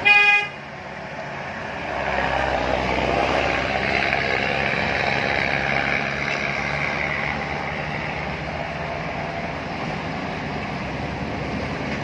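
A short vehicle horn toot right at the start, the loudest sound. It is followed by steady traffic engine noise on the road bend, with a heavy vehicle's low engine drone swelling from about two seconds in.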